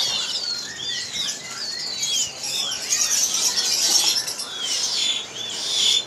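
Many caged songbirds chirping and whistling at once: a dense, overlapping chorus of short, high calls that sweep up and down in pitch.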